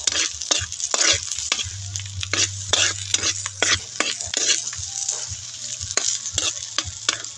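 Metal ladle scraping around a wok, stirring garlic and onion as they sizzle and fry, in quick even strokes about two to three a second.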